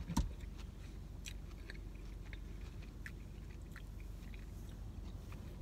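Close-up mouth sounds of someone chewing a mouthful of chicken Caesar salad, with scattered faint crunches. There is one sharp click just after the start.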